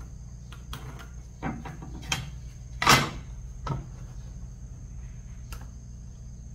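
Wooden boards being handled and set down on a wooden frame: a series of short wood-on-wood knocks, the loudest about three seconds in. A steady low hum and a faint steady high tone run underneath.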